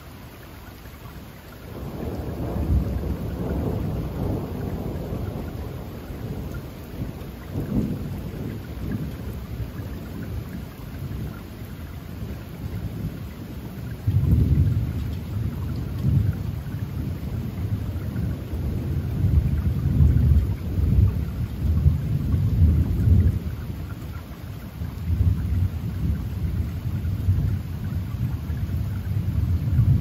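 Thunder rolling in long low rumbles over steady rain. The rumble starts about two seconds in and swells again several times, loudest near the middle and toward the end.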